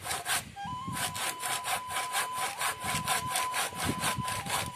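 Hand saw cutting through a wooden branch in quick back-and-forth strokes, about five a second, with a brief pause about half a second in. A flute holds long, slightly stepping notes over the sawing from then on.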